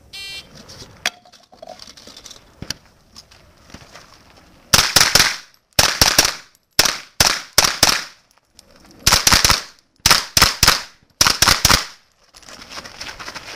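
A shot timer beeps once at the start. About four and a half seconds later an AR-pattern pistol-caliber carbine fires about eight short, rapid strings of shots with brief pauses between them.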